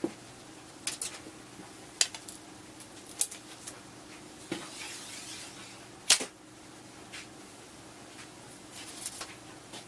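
Handling noise from a fiberglass takedown recurve bow being worked by hand: scattered light clicks and knocks, with one sharper click about six seconds in and a brief rustle just before it.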